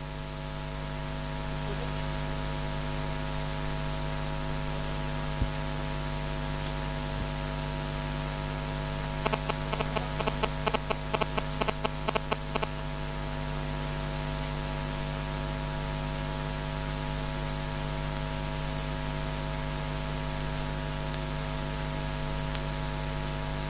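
Steady electrical mains hum and static hiss from the sound system, with a few seconds of crackling clicks about halfway through.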